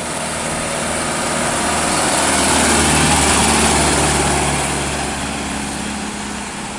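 A Mitsubishi light dump truck's diesel engine and tyres passing close by: the engine drone and road noise grow louder to a peak about three seconds in, then fade as the truck drives away.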